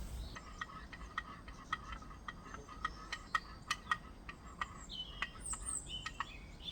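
Birds chirping: a run of sharp ticks at about three a second, with a few quick gliding chirps about five seconds in.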